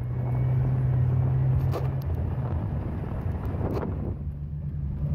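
A Jeep Cherokee's engine running steadily as it drives slowly over grass, with two brief knocks about two seconds apart.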